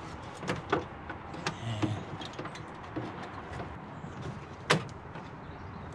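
Scattered small metallic clicks and taps as broken bonnet-catch rivet remains are worked loose from the steel front slam panel of a VW Mk2 Golf, with one louder click late on.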